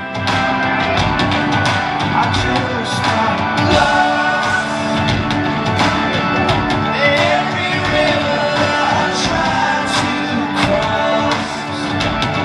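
Live rock band playing loud: electric guitar, bass guitar and drum kit with a male lead vocal.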